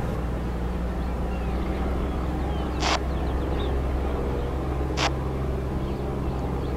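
Handheld two-way radio giving two short bursts of static, a couple of seconds apart, while waiting for an answer to a call, over a low steady motor hum.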